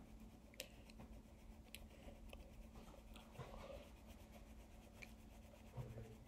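Faint pen or pencil work on a journal page: light scratching on paper with a few small ticks.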